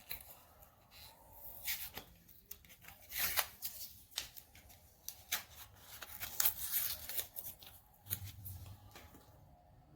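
Lemon pepper seasoning being shaken out of its container: a run of irregular short rattling shakes and clicks.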